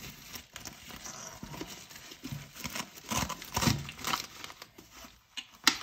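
Hands working a cloth helmet cover with Velcro patches over a helmet shell: fabric rustling with short scrapes, a few louder ones about three seconds in and near the end.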